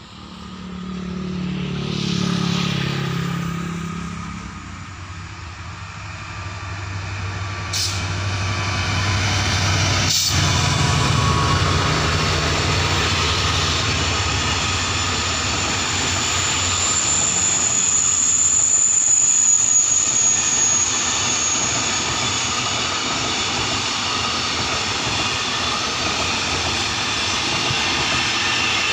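Diesel locomotive hauling a passenger train goes by, its engine sound swelling and then dropping in pitch as it passes. The train's coaches then roll past on the rails in a steady clattering rumble, with two sharp clacks and a high wheel squeal in the middle.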